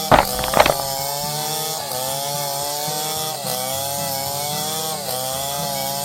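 A small motor running steadily, its pitch wavering up and down about every second and a half, with two sharp clicks right at the start.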